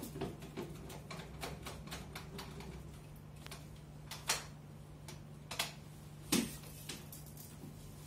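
Short-nap paint roller on an extension pole being worked over a wall with emulsion paint, making a quick run of light clicks as it rolls. Three louder knocks follow in the second half.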